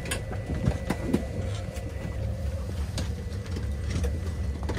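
Steady low rumble of an airliner cabin, its ventilation and engine noise, with a faint even hum and a few short knocks and rustles.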